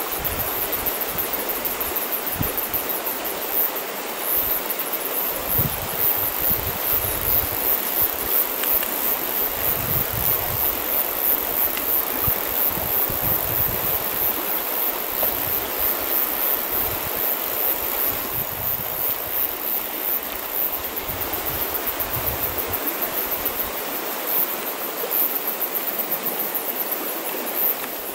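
Steady outdoor rushing noise, with long grass brushing close to the microphone and irregular low buffets of wind on it.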